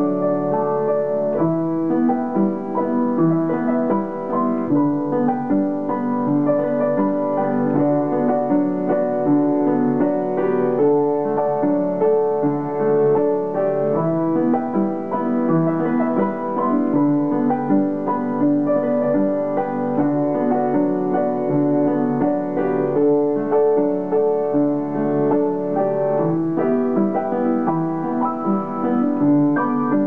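Solo piano music, a continuous piece of held and overlapping notes.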